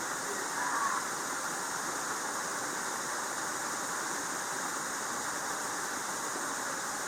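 Creek waterfall pouring, a steady unbroken rush of falling water.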